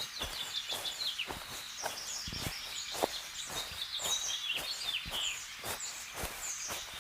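Small birds chirping, many short high calls that mostly dip in pitch, over a run of frequent sharp clicks or taps.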